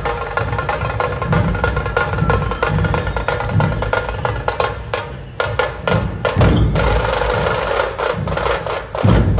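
Loud percussion-heavy music: rapid, dense drumming over a steady repeating bass pulse, with a brief drop about five seconds in.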